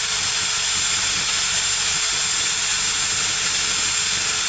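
Craftsman electric drill running at a steady speed with a wire wheel brush scraping against a steel hatchet head: a steady whine with a hissing scrape. The wire wheel is taking rust off the head and smoothing the metal.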